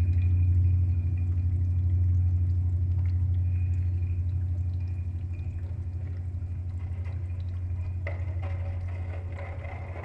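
A loud, steady low hum in an experimental improvised piece, with a faint high tone above it, slowly fading. A brighter, rougher sound comes in about eight seconds in.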